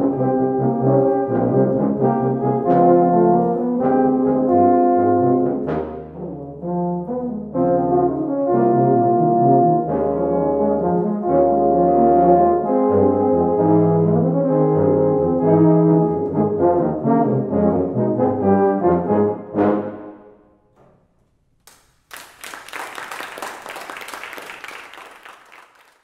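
Tuba-euphonium quartet of two euphoniums and two tubas playing the closing bars of a piece, with sustained low chords and moving upper lines, ending on an accented final chord about twenty seconds in that rings away. After a second of quiet, audience applause starts and fades out.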